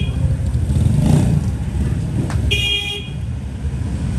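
Steady rumble of road traffic, with a short high horn beep about two and a half seconds in.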